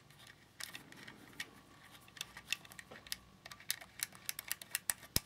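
Faint, irregular small metal clicks and ticks as a Nikon AR-1 soft shutter release is screwed onto the threaded shutter button of a Nikon F2, coming thicker in the second half.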